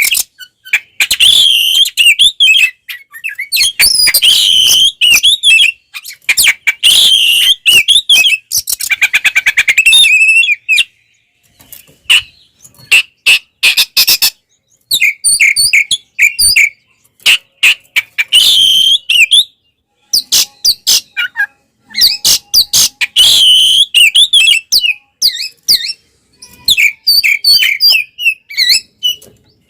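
Oriental magpie-robin (kacer) singing its full, loud fighting song: bursts of rapid, varied whistles and chirps with short pauses between phrases, and a buzzy rattling trill about nine seconds in. This aggressive challenge song is the kind played to provoke other male magpie-robins.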